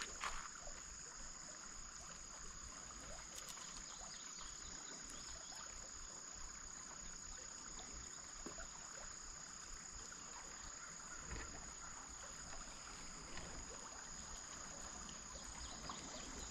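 Faint, steady high-pitched insect chorus, with a light wash of outdoor background noise.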